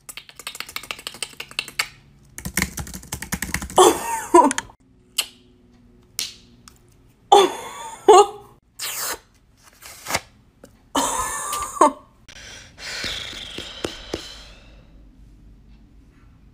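Rapid clicking of typing on a computer keyboard, followed by beatboxed mouth imitations of it. After that comes a run of short everyday sounds, one of them with a marker in hand, each answered by a beatboxed version made with the mouth and hand.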